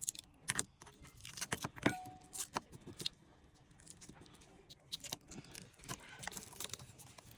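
Faint, scattered clicks and light taps of small repair tools and parts being handled on an opened iPhone X, with a brief faint squeak about two seconds in.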